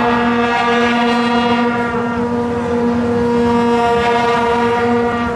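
Marching band brass, trumpets among them, holding a long, steady chord for about four seconds, with the notes changing near the end.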